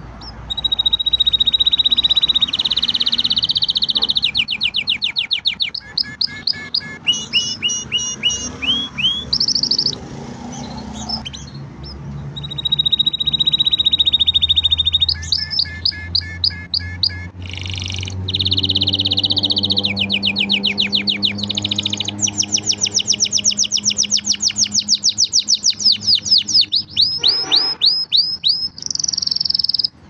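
Green canary singing a long song of high trills and fast runs of repeated notes, with a short pause about ten seconds in before it starts again.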